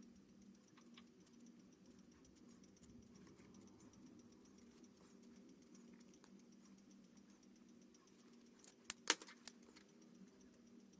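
Faint scratching and light tapping of a pen on drawing paper, with a few sharp clicks close together about nine seconds in, over a steady low hum.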